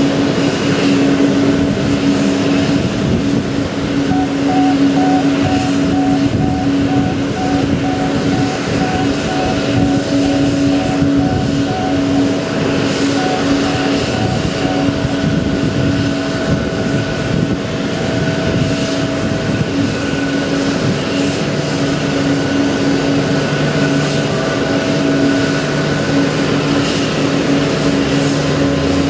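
Steady whine and hum of a Boeing 787 Dreamliner on the apron during pushback. A quick pulsing beep sounds for several seconds starting a few seconds in, and a lower hum joins later.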